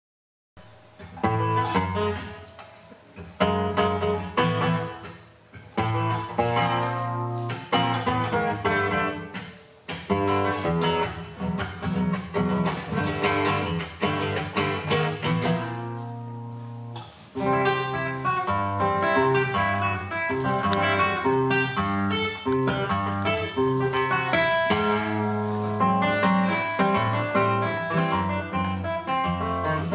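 Nylon-string classical guitar playing an Argentine gato: loud strummed chords broken by short pauses in the first ten seconds, a held chord midway, then busy, continuous strumming and picking.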